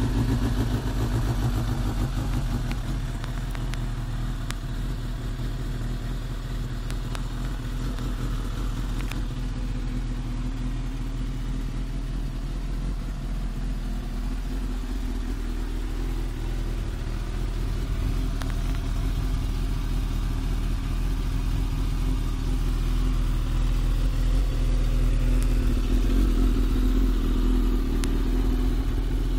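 Suzuki GSX-R1000 K5's 999 cc inline-four idling steadily through a Yoshimura Tri-Oval short exhaust, with no revving. It settles slightly in the first couple of seconds and grows louder near the end.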